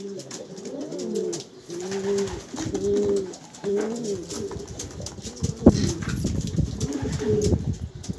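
Domestic pigeons cooing: repeated, overlapping coos that rise and fall in pitch. A single sharp knock comes a little past halfway.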